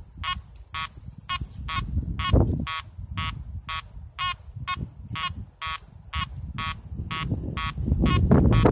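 Makro Multi Kruzer metal detector giving short electronic beeps, evenly spaced about twice a second, while set to deep mode at 5 kHz with its extra-underground-depth boost off. A low rumbling noise runs underneath and grows louder near the end.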